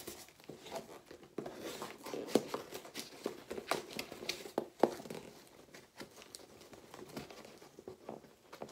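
Cardboard shipping box being torn open by hand: irregular crackling, ripping and scraping of the cardboard, with a couple of sharper snaps about two and a half and five seconds in, and quieter towards the end.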